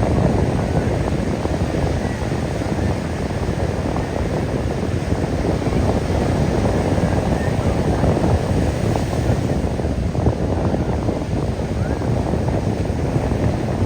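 Wind buffeting the microphone at the beach, a steady low rumble, with ocean surf mixed in.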